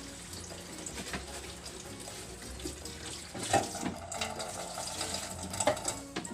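Water running from a tap as a small washing machine is washed out, with a few knocks from it being handled.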